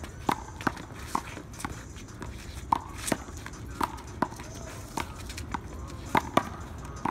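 A rubber handball in a one-wall handball rally: about a dozen sharp slaps of the ball on hands, wall and pavement, irregularly spaced and often in quick pairs.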